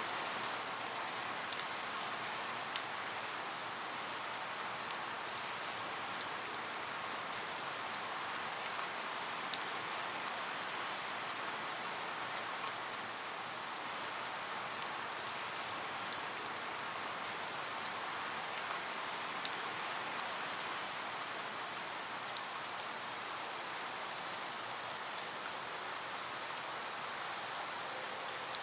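Steady rain falling, with scattered sharp drops ticking irregularly every second or two.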